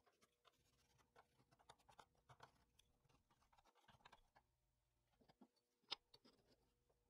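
Faint scratching of a pencil tracing around an old wooden handle scale onto a hardwood blank. About six seconds in there is one sharp click as the wooden pieces are picked up.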